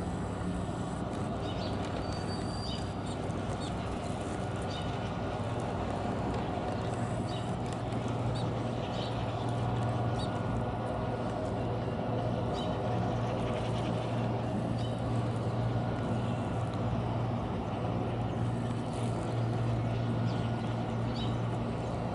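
Harbour ambience: a steady low mechanical hum that grows a little stronger about a third of the way in, with scattered short faint bird chirps over it.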